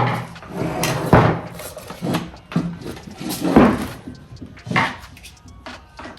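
Intermittent knocks, clunks and scrapes of tools and gearbox parts being handled during a manual transmission teardown, about half a dozen in all, the loudest about three and a half seconds in.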